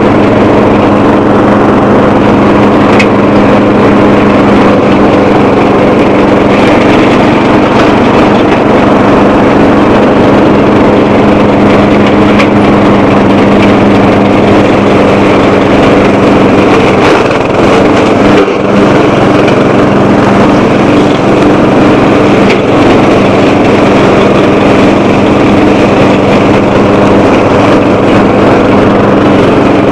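The 12 hp single-cylinder Bolens lawn tractor engine running steadily under load as the tractor pushes through dense brush, with a slight dip in level about two-thirds of the way through.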